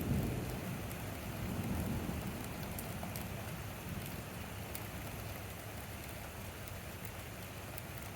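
Steady rain falling during a thunderstorm, with scattered drop ticks. A low rumble of distant thunder swells at the start and again about two seconds in, then fades.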